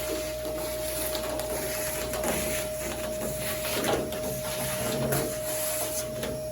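Garage utility vacuum, fitted with a new motor, running: a steady whine over rushing air that rises and eases a few times as the hose picks things up.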